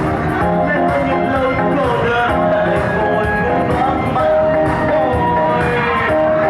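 Loud music with a melody and singing, playing continuously.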